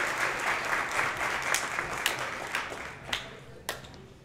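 Audience applauding, the clapping thinning out after about two seconds to a few scattered last claps.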